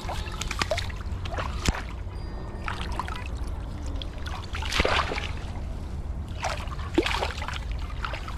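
Shallow pond water splashing and sloshing in a series of short bursts as a large hooked fish thrashes at the surface and hands work in the water, over a steady low rumble.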